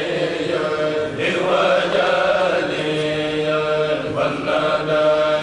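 A kourel, a Senegalese choir of khassida chanters, singing a khassida unaccompanied, its men's voices drawing out long held notes that shift in pitch every second or so.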